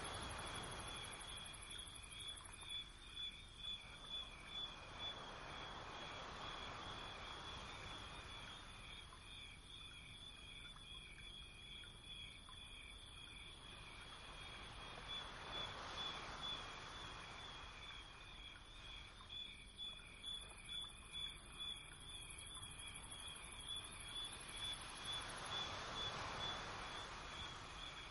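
Faint insect chirping: a steady, finely pulsing high trill at two pitches, over a soft hiss that swells and fades every few seconds.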